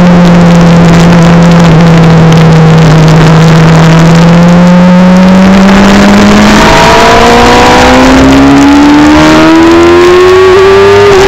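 Sport motorcycle engine heard onboard, very loud: a steady note that sags slightly through a long corner, then about six and a half seconds in climbs steadily as the bike accelerates hard. Heavy wind rush over the microphone throughout.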